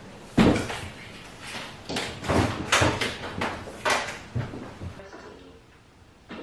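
A French-door refrigerator being opened and closed, with a string of knocks and rattles from its doors and shelves as things inside are handled. The loudest knock comes about half a second in, and several more follow over the next four seconds before it quietens.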